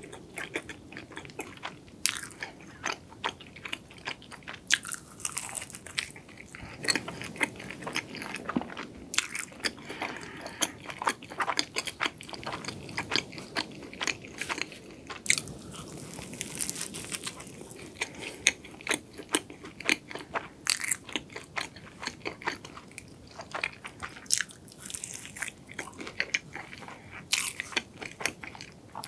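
Close-miked biting and chewing of a matcha-cream cronut, its flaky laminated croissant pastry giving many sharp, irregular crackles and crunches.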